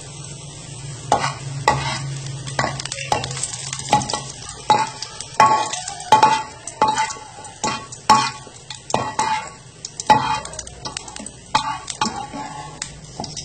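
A spatula scraping and tapping against a non-stick frying pan about once or twice a second, gathering fried shallots in sizzling oil, with a steady low hum underneath.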